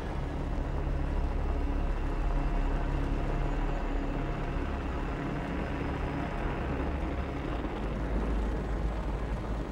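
Underwater volcanic vent erupting: a deep, steady rumble with a hiss of escaping gas.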